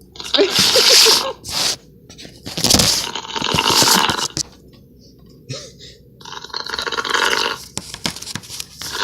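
A man snoring, heard through a Skype call over his unmuted phone: noisy snores about every three seconds, each a second or so long.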